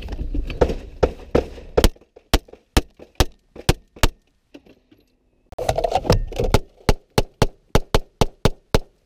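Semi-automatic handgun fired rapidly from inside a car cabin, about three shots a second. Two strings of over a dozen shots each, with a pause of about a second and a half between them.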